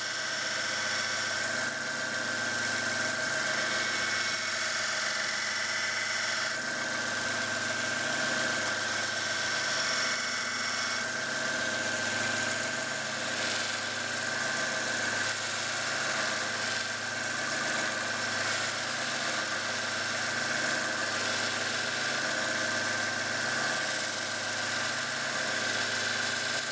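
Bench belt sander running with a coarse conditioning belt, sanding a stacked leather hammer handle: a steady motor hum with a constant high whine, its texture shifting a little as the handle is worked against the belt.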